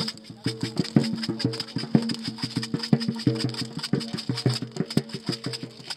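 Instrumental music with short plucked notes over a steady, quick rhythmic beat.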